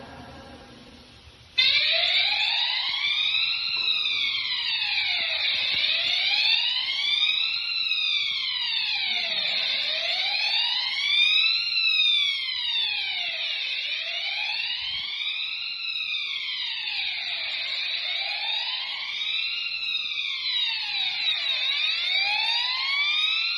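Electronic fire alarm siren wailing, its pitch sweeping up and down about once every four seconds. It switches on suddenly about one and a half seconds in, after a faint hiss.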